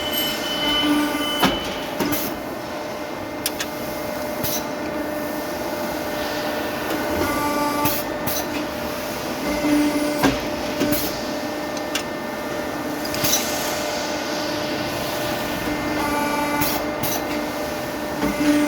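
CNC tube bending and end-forming machinery running: a steady mechanical hum with a couple of steady tones, broken by sharp clacks and knocks every second or few as it works.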